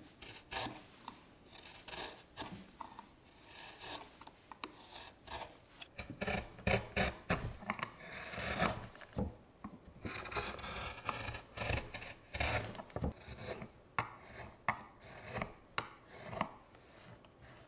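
Hand carving gouge cutting into a maple plate in short strokes, each shearing off a curled shaving with a crisp scraping sound. The strokes come irregularly, about one every second or less, and are most tightly bunched through the middle.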